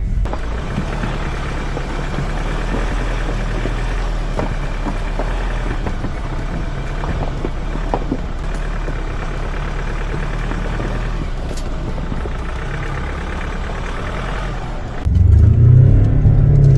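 Ford Ranger Raptor crawling over a rough forest track: steady engine and tyre rumble with scattered short knocks and clunks. About fifteen seconds in it turns suddenly much louder as the engine is revved, its pitch rising and falling.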